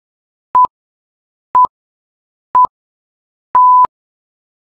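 Workout interval timer's countdown: three short electronic beeps at one pitch, a second apart, then a longer beep marking the end of the rest and the start of the next exercise interval.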